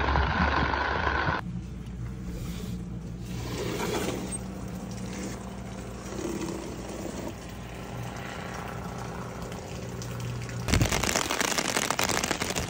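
Rain falling on a clear umbrella, then a cut to a quieter steady low hum. About eleven seconds in, dense rain pattering on the umbrella comes back, louder.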